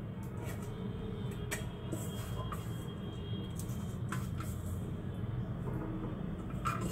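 A few light metallic clinks and scrapes from a stainless steel pot being handled, over a steady low hum.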